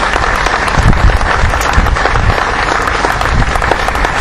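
Audience applauding, many hands clapping in a steady dense patter.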